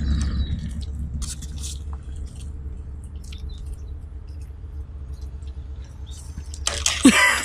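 Zipline trolley rolling along the steel cable: a steady low rumble with a faint hum. Near the end a short loud clatter with a brief cry, as the rider reaches the spring stop at the end of the line.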